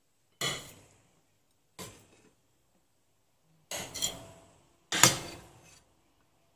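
A metal spoon clinking and scraping against a stainless-steel steamer pot and its perforated plate as steamed dumplings are lifted out: a handful of separate strikes, each ringing briefly, the loudest about five seconds in.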